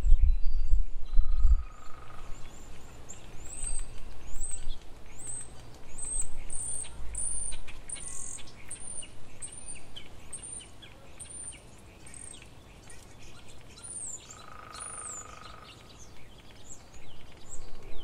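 A small songbird giving a long series of very high, thin chirps, about two a second, stopping a couple of seconds before the end. A low rumble in the first two seconds.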